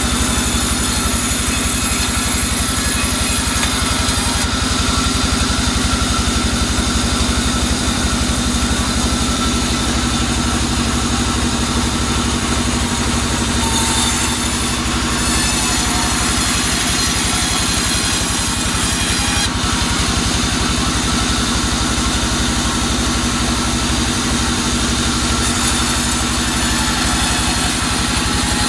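Bandsaw mill running steadily while its blade saws through a soft albasia log. The steady drone carries a high sawing hiss that strengthens and drops back several times as the wood passes the blade.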